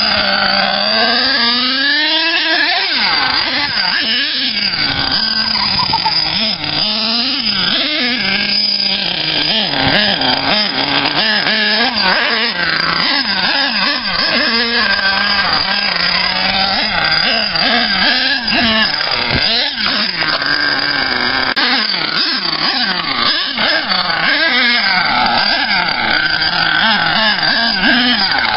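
Nitro engine of an HPI Savage RC monster truck, an Axial .28, running hard and revving up and down over and over in quick rising and falling whines as the truck is driven.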